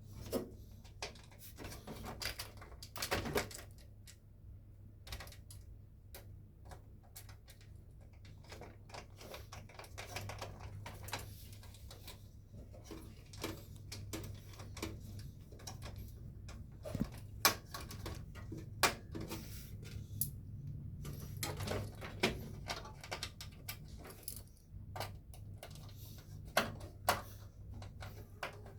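Irregular light clicks and knocks of small metal computer hardware being handled during PC assembly, such as screws, case parts and components, with a handful of louder clacks, over a steady low hum.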